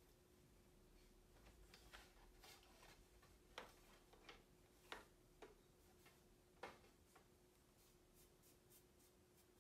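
Near silence: a few faint, light clicks and taps as the wooden tie-up stick and the loom's wooden parts are handled, over a faint steady hum.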